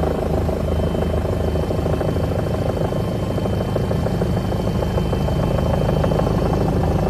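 Helicopter engine and rotor running steadily, with a thin high whine over the low drone.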